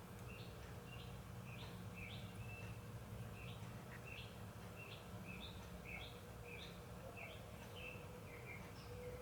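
A bird chirping over and over, short falling notes about twice a second, faint against a low steady hum.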